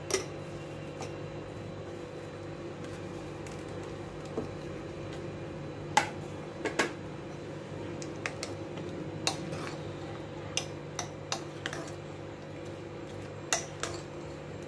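Steel spoon clinking and scraping against a glass bowl while chopped fruit is stirred into custard: scattered light taps, with a few sharper clinks around six and seven seconds in and again near the end. A low steady hum runs underneath.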